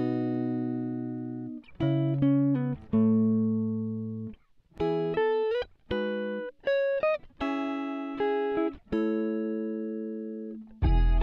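Background music: a plucked-string melody, guitar-like, of single notes and chords struck one after another, each ringing and fading before the next.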